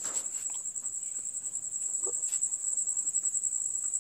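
A steady, high-pitched, rapidly pulsing insect trill that runs on without a break.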